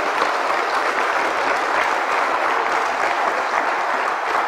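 A church congregation applauding, a steady dense clapping.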